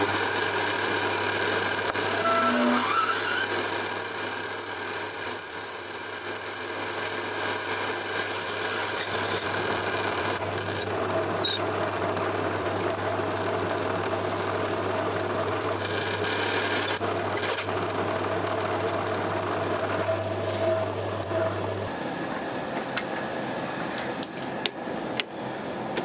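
Mini lathe running with its spindle turning while a twist drill in the tailstock bores out a gear held in the chuck: a steady motor hum with cutting noise, and a high thin whine from the drill from about 3 to 9 seconds in. The motor stops about 22 seconds in, followed by a few clicks of handling.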